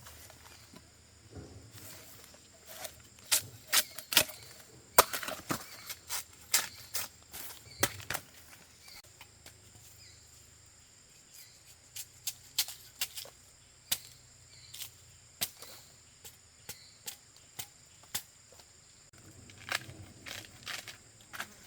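Irregular sharp snaps and cracks: a dense run of them a few seconds in, then scattered single ones.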